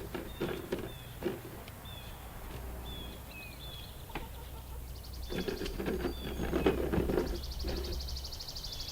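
Red sex-link hens clucking in low bursts, loudest after about five seconds, while a small wild bird chirps repeatedly in short falling notes. A high buzz with a fast pulse comes in about five seconds in.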